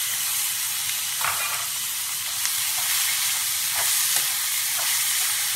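Paneer cubes and chopped capsicum, onion and tomato sizzling in oil in a kadai, with a steady frying hiss. A metal spatula stirs them and scrapes the pan five times.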